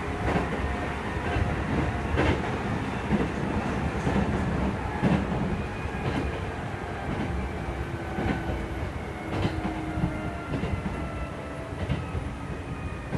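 Kintetsu 2430 series motor car Mo 2462 running along the line, heard from inside the car: a steady rumble of wheels and running gear with faint tones that drift slightly in pitch, and a few sharp clacks a few seconds apart as the wheels pass over rail joints.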